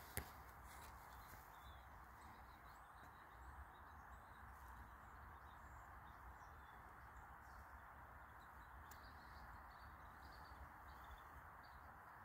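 Near silence: faint steady outdoor background noise with a few faint, high bird chirps scattered through, and one sharp click just after the start.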